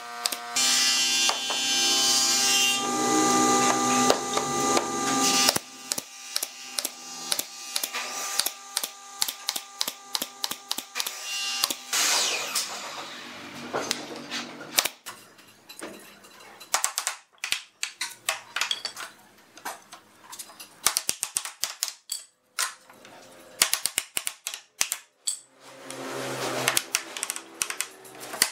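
Woodworking sounds: a power tool runs with a steady tone for about five seconds near the start, followed by a string of sharp knocks and clicks as pine door pieces are tapped into place with a wooden block.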